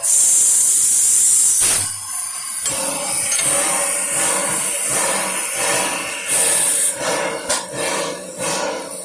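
Puffing Billy narrow-gauge steam locomotive letting off steam: a loud hiss for nearly two seconds, then a shorter one about six seconds in, with rattling and a few sharp knocks between and toward the end.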